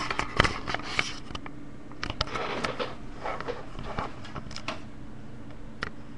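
Handling noise from a webcam being picked up and turned around: a few knocks and clicks at first, then softer scraping and rustling, and one last click near the end, over a steady low hum.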